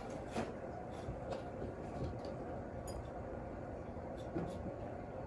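Scattered light clicks and taps over a steady low hum: small pets eating from a glass dish and moving about in their wire cages.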